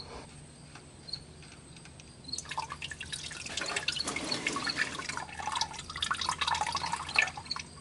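Engine oil running out of the oil filter housing drain and spattering as it falls. It starts about two and a half seconds in as a dense, irregular patter of small drips and splashes, then eases off near the end.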